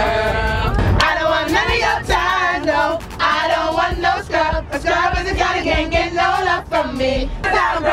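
A group of voices singing a song together, with a regular beat under the singing.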